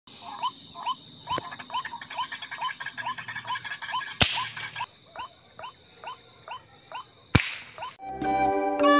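White-breasted waterhen (ruak-ruak) calling, a quick series of short rising notes about three a second, over a steady high drone of night insects. Two sharp cracks cut in, one about halfway and one near the end.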